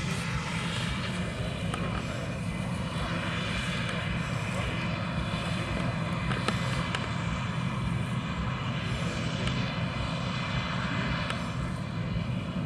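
Combine harvester running steadily while cutting standing grain: a constant engine drone with steady higher tones from the machinery.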